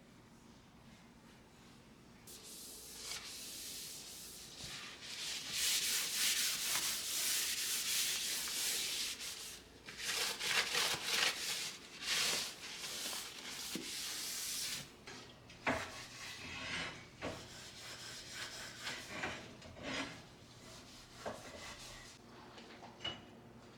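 Rubbing or scrubbing strokes against a hard surface, steady for about twelve seconds. They are followed by scattered short scrapes and light knocks.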